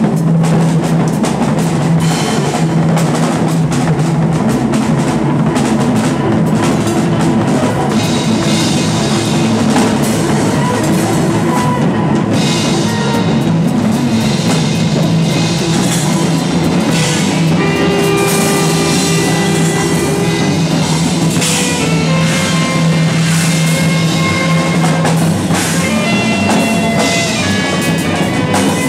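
Live improvised noise-rock jam: a drum kit pounded with bass drum and crashing cymbals over a droning bass note and electric guitars, with held high notes coming in about halfway through.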